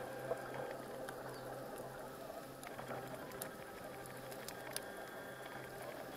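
Underwater ambience recorded through a camera housing: a steady low hum under a soft wash, with a few sharp clicks scattered through.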